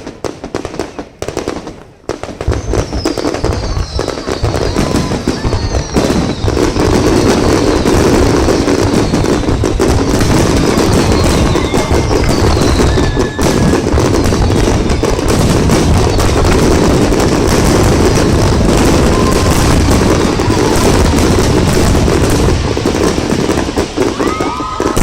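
Fireworks finale barrage: a few separate bangs in the first two seconds, then a dense, unbroken run of bursts and crackling, with whistles gliding down in pitch over it.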